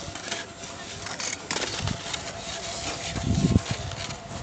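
Skis sliding and scraping over packed snow, with wind and handling rumbling on the phone's microphone; a louder rumble a little past three seconds in.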